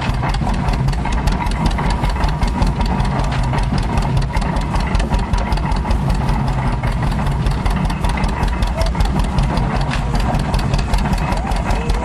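Antique tractor engine running steadily with a rapid, even beat, driving a belt-powered stationary straw baler.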